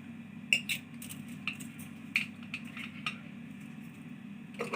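A spoon clinking and scraping against a cooking pot while béchamel sauce is stirred: about eight irregular knocks, some in quick pairs, over a low steady hum.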